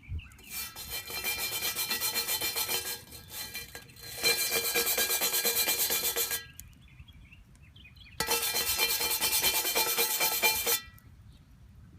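Burnt-on crud being scraped off a cast iron Griswold skillet in three bouts of quick back-and-forth strokes, with the iron ringing faintly under the scraping. The old seasoning and buildup have been softened by the fire and come off easily.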